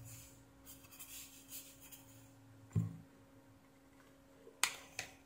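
Ballpoint pen writing on paper on a clipboard, faint scratching strokes for about the first two seconds. A dull thump comes near the three-second mark and two sharp clicks near the end, over a faint steady hum.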